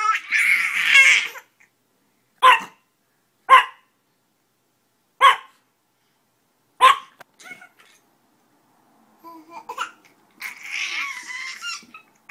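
A small chihuahua-type dog gives four single sharp yaps, a second or more apart, while a baby babbles and laughs at the start and again near the end.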